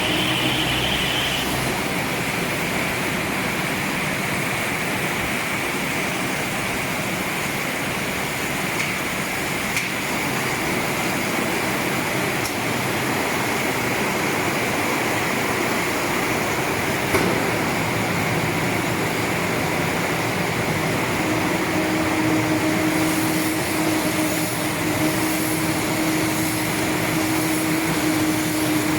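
Silage baling and film-wrapping machine running: a steady mechanical whirr with faint knocks, one sharper a little past halfway, and a steady hum that comes in about two-thirds of the way through.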